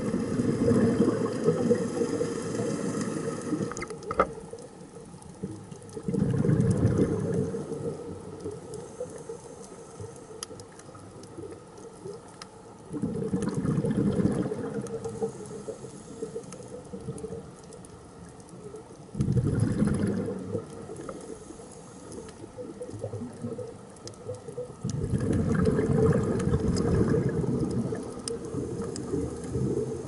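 Scuba diver's exhaled air bubbling out of the regulator underwater, in five surges about every six seconds with the breathing rhythm. Faint scattered clicks and crackle sound between them.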